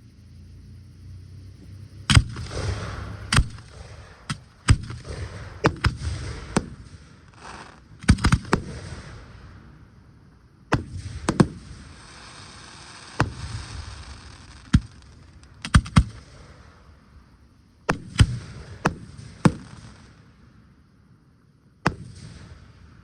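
Aerial fireworks going off: a long run of sharp bangs, some in quick pairs and clusters, with hissing and crackling between them as the shells burst and burn.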